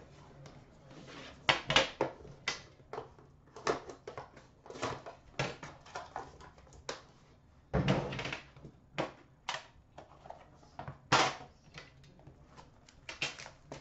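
Irregular clicks, knocks and rustles of a hockey card box being opened: the cardboard outer box slid off a metal tin, the tin handled on a glass counter and its lid taken off. A couple of louder knocks come past the middle.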